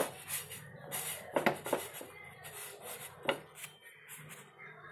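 Pav buns being turned by hand on a nonstick pan: a few sharp knocks and bumps against the pan, two close together about a second and a half in and another about three seconds in.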